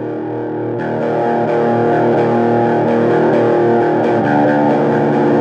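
Distorted electric guitar playing a metal riff of sustained notes; the sound fills out and brightens about a second in.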